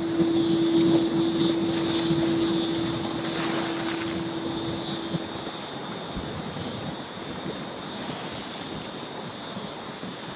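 A steady engine drone with a held hum tone that stops about five and a half seconds in, then a fainter rumble that slowly dies away.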